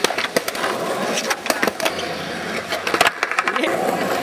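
Skateboard wheels rolling over concrete, with several sharp clacks of the board popping and landing, the loudest about three seconds in.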